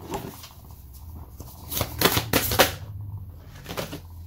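A deck of tarot cards being shuffled by hand: soft rustling of the cards, with a louder run of quick card clicks about two seconds in.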